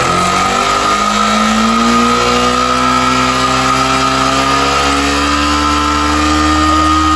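A 150 cc motorcycle's single-cylinder engine is revved up sharply and held at raised revs, creeping slightly higher, then drops back toward idle at the very end. It is being held up so the stator's charging output can be read. A steady high whine runs underneath.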